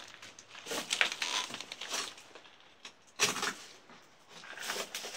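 Footsteps crunching and scraping over loose brick and stone rubble: a few irregular crunches, the loudest a little after three seconds in.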